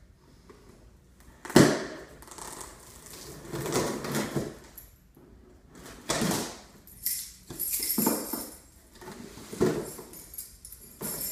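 Car key being dragged and jabbed through packing tape on a cardboard box, in irregular scratchy tearing strokes, with one sharp loud stroke about a second and a half in.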